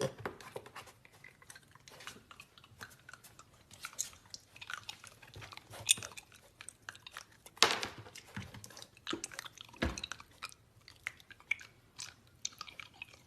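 Close-up chewing and crunching of something hard and crunchy, with many irregular crunches every second. The loudest crunches come about six and about seven and a half seconds in.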